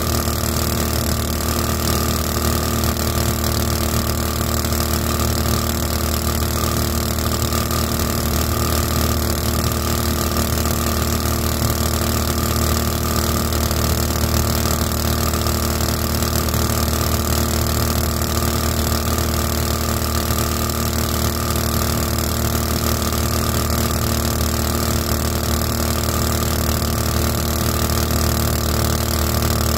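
Small single-cylinder 224cc engine running steadily at cruising throttle, pushing a flat-bottom jon boat with a 7-inch two-blade prop. The pitch and level hold constant.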